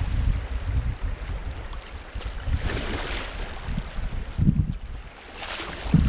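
River whitewater rushing and splashing around a kayak running a rapid, with the paddle dipping into the water. Low buffeting of wind on the microphone runs underneath, with louder surges of splashing about halfway through and near the end.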